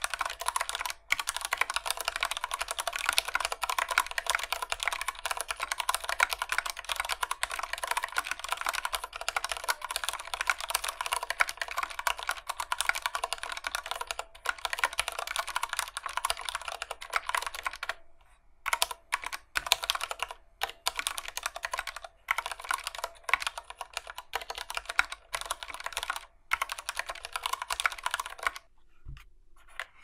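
Mistel Barocco MD770 split mechanical keyboard with Cherry MX Brown tactile switches being typed on, a fast, dense run of key clacks. About two-thirds of the way through the typing slows to single, separate key presses, then stops shortly before the end.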